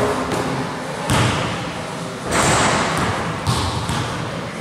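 A basketball thudding on a gym floor and bouncing. A loud hit comes about a second in, a short rush of noise follows around the middle, and a few lighter knocks come near the end.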